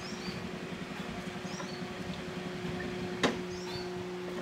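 Small motor scooter engine running low as the scooter pulls up, settling into a steady idle hum. Small birds chirp several times, and a single sharp click comes a little past three seconds in.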